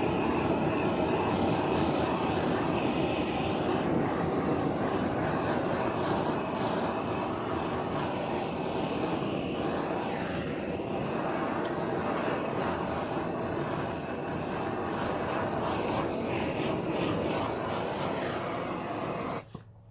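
Heat gun blowing steadily over resin, with a faint whine from its fan motor; it cuts off abruptly near the end.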